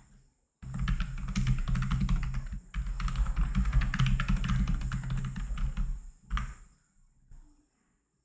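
Typing on a computer keyboard: a quick run of key clicks with a short pause partway through, then a single keystroke about six seconds in.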